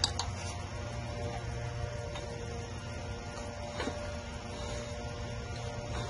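A steady low hum, with a light click at the start and another about four seconds in.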